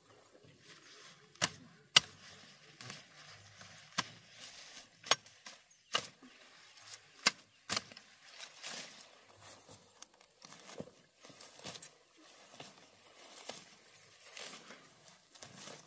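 Irregular sharp knocks, roughly one a second, some much louder than others, the loudest about two seconds in.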